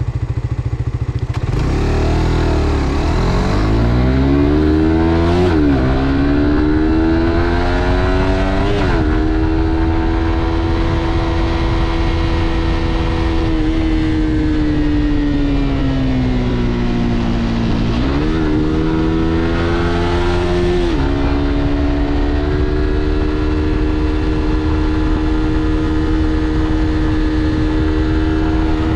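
Suzuki GSX-R125's single-cylinder four-stroke engine pulling away and accelerating through the gears: its pitch climbs and drops sharply at two upshifts, then holds steady at cruise. About two-thirds of the way through it eases off, picks up again with one more shift and settles at a steady speed.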